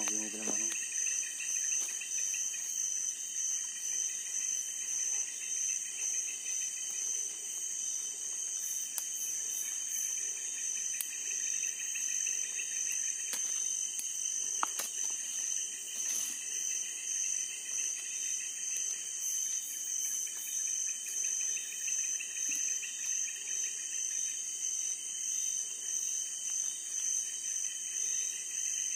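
Steady chorus of night insects trilling in several high-pitched layers, one of them pulsing fast, with a few faint clicks.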